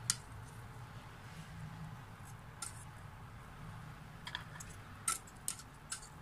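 Metal kitchen tongs clinking against a stainless steel cooking pot while boiled potatoes are lifted out of the water: a handful of sharp, short clicks, the loudest at the very start and several more close together in the last two seconds.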